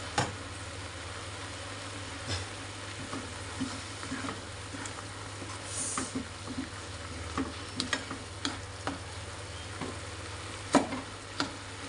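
Chili, tomato and shallot spice paste sautéing in a nonstick frying pan, with a spatula stirring and scraping against the pan, giving scattered clicks and taps over a steady sizzle. The loudest knocks come right at the start and twice near the end.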